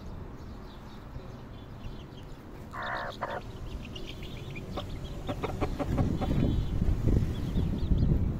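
Broody hen with chicks: one short, harsh hen cluck about three seconds in, then chicks peeping in short high notes, with a low rumbling noise growing louder in the second half.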